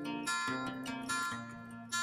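Instrumental background music on acoustic guitar, with plucked and strummed notes that change every half second or so.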